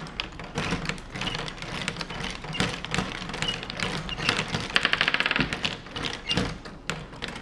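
Plastic VEX ball machine clicking and clattering: irregular taps and knocks of its plastic parts and balls, with a brief fast rattle about five seconds in.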